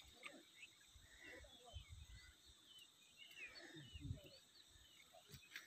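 Near silence outdoors, with faint bird calls chirping now and then.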